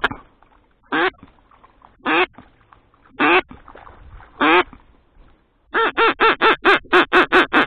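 Duck quacking: four single drawn-out quacks about a second apart, then a fast run of about ten quacks near the end.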